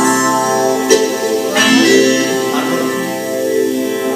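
Weltmeister piano accordion playing held chords, the notes shifting a few times.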